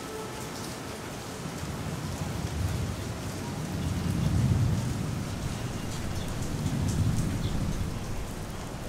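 Steady rain falling, with a long low rumble of thunder that builds a second or two in, peaks near the middle and rolls again near the end.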